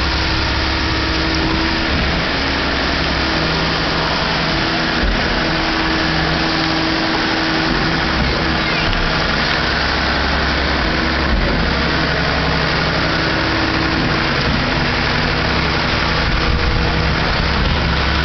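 Concrete pump truck's diesel engine running steadily while the pump works, driving concrete up the extended boom.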